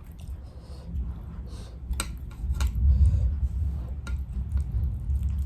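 Close-miked chewing of crispy fried chicken, with crunches and mouth sounds and a deep rumble from the jaw working near the microphone; the sharpest crunches come about two to three seconds in.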